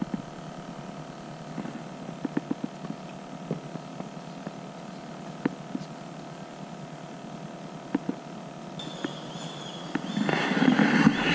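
Light knocks and taps on a plastic sit-on fishing kayak, scattered over a quiet steady background. A louder rustling noise comes in near the end.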